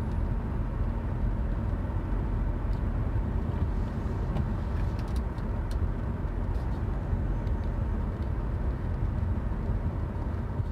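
Steady road and engine rumble of a car driving.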